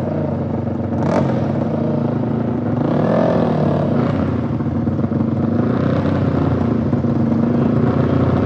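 Dirt bike engines running at idle, with the revs rising and falling briefly about three seconds in and again around six seconds.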